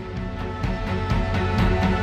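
Background music fading in, with held notes over a regular beat.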